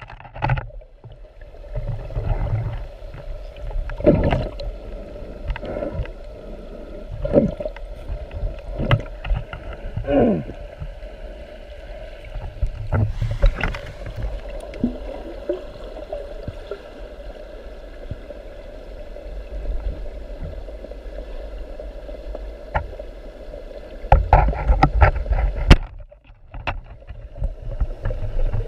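Water movement with scattered knocks and clicks, heard from a camera in the water while spearfishing in a river; a louder flurry of knocks comes near the end.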